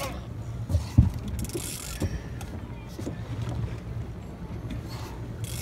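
Boat engine running with a low, steady hum, with a few short knocks, the loudest about a second in.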